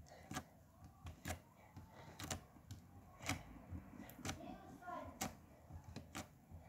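Blue fluffy slime being pressed and folded by hand, giving soft clicks about once a second as air pockets in it pop.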